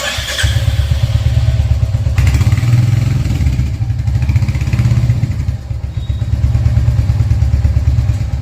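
Royal Enfield Hunter 350's single-cylinder engine running through its stock silencer, a steady low thump that is muffled.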